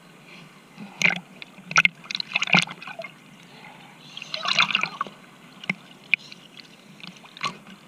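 Water splashing and sloshing in short, irregular bursts, about five distinct splashes, with quieter water noise between them.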